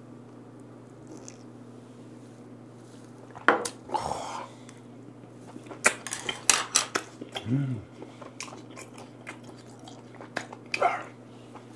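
Eating and drinking at the table: a small cup set down on the table with a sharp click, a breathy exhale, then chewing with chopsticks clicking and tapping against the dishes and a short hummed 'mm'. A steady low hum lies underneath.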